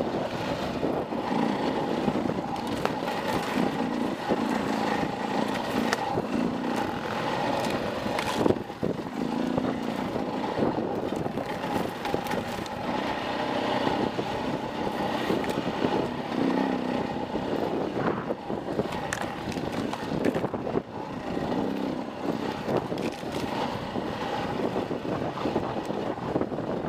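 Dirt bike engine running with the throttle rising and easing off as it rides singletrack, with a sharp knock from the bike about eight seconds in.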